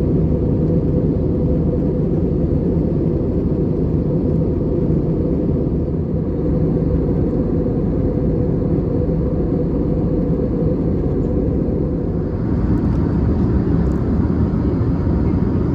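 Airbus A320neo cabin noise in flight: a steady, deep roar of airflow and engines. A little more hiss joins about twelve seconds in.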